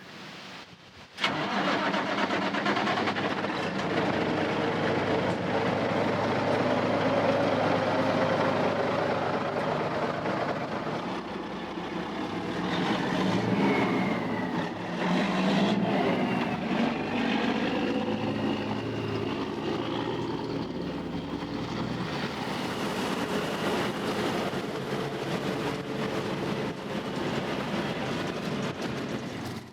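Case IH 8230 Axial Flow combine's diesel engine starting about a second in and then running steadily, its pitch shifting around the middle.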